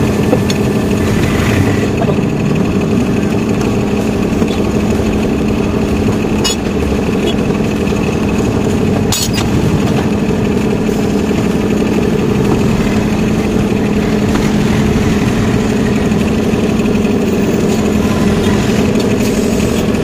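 Belt-driven workshop air compressor running steadily with a low, even hum, with a couple of sharp clicks from tools on the wheel rim.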